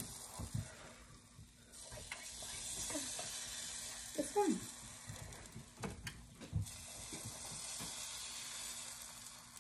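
Pancake batter sizzling in a hot stainless steel frying pan as it is squeezed out of a squeeze bottle: a steady high hiss that dips and returns twice, with a few soft knocks and a short falling squeak near the middle.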